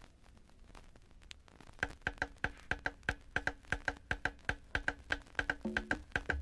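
Latin percussion recording: after a short quiet gap, a quick, steady pattern of sharp, high clicks on a hand percussion instrument starts about two seconds in. Pitched conga drum tones join near the end.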